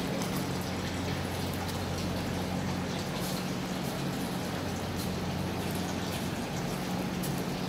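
Steady room background noise: a low hum with a hiss over it, and a few faint ticks.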